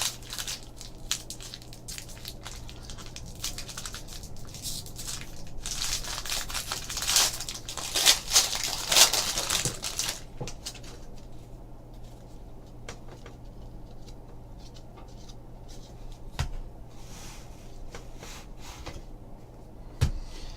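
A trading card pack's wrapper being torn open and crinkled, loudest about six to ten seconds in, with scattered soft clicks and shuffling of cards being handled before and after.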